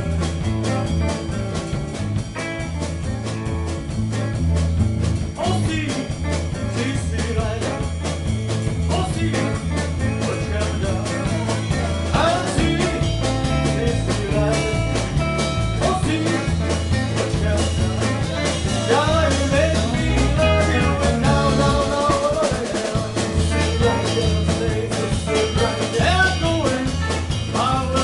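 Live rock-and-roll band playing, with guitars over a steady pulsing bass beat; a male singer comes in partway through.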